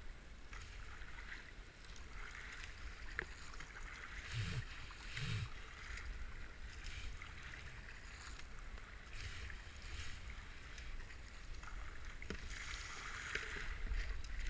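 Kayak paddle blades dipping and pulling through the water in regular strokes, a splashing hiss roughly every second or two.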